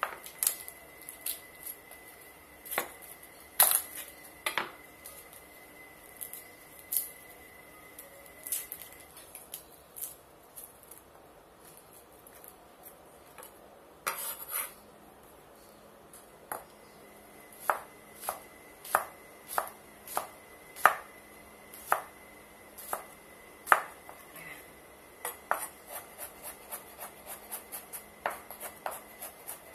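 Knife chopping garlic on a bamboo cutting board: sharp knocks of the blade against the wood. They are sparse and irregular at first, settle to about one a second past the middle, and come quicker near the end.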